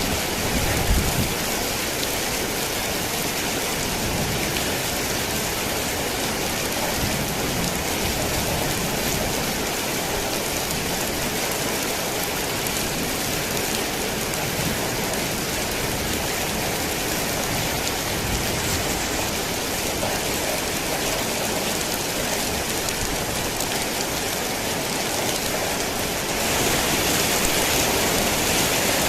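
Heavy rain falling on a tin roof, a steady dense hiss of drops that grows a little louder near the end.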